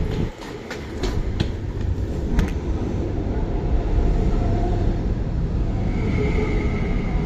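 MTR Tuen Ma Line IKK-Train electric multiple unit running past close by, with a steady, dense rumble of wheels on rail. A run of sharp clicks comes through in the first two and a half seconds, and a thin high whine comes in about six seconds in.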